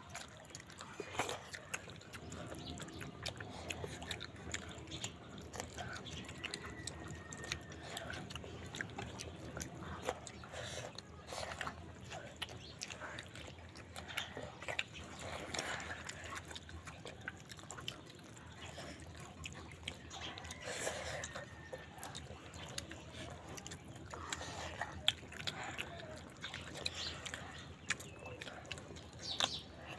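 Close-up eating sounds of chicken leg and dal curry: wet chewing, lip smacks and small mouth clicks, irregular and fairly quiet.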